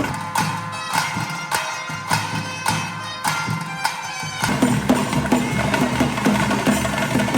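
Live Bhoota Kola ritual music: a reedy wind instrument held on steady notes over sharp drum strokes about twice a second. About four and a half seconds in, a low drone and fuller drumming join.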